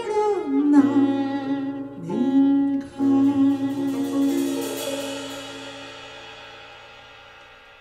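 Live ensemble music coming to its close: a few last moving notes, then a final chord held and slowly fading away.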